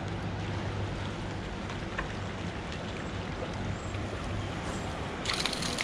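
Steady rush of turbulent water boiling out below a hydroelectric dam, with a constant low hum under it. About five seconds in, a louder hiss with rapid fine ticking starts on top.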